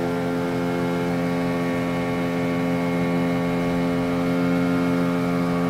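The motor of a wooden pirogue running steadily under way, holding one even pitch with no change in speed.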